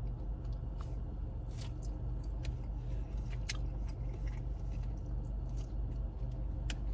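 Close-up chewing and wet mouth noises of a person eating chicken with their fingers, with scattered small clicks and smacks over a steady low hum.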